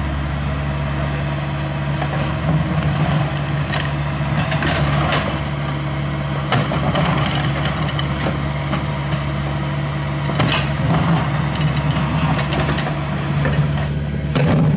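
CAT 305.5E2 mini excavator's diesel engine running steadily while the machine digs, with scattered knocks and scrapes as the bucket cuts into the dirt bank.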